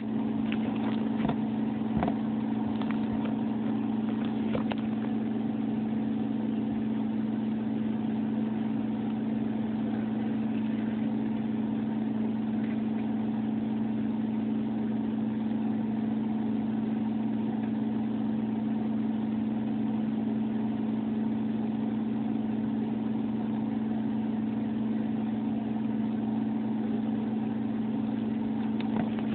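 A steady low machine hum, with a few light taps and knocks in the first few seconds.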